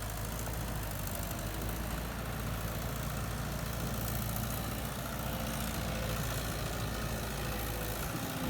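Heavy diesel engine idling steadily, a constant low rumble with an even pitch.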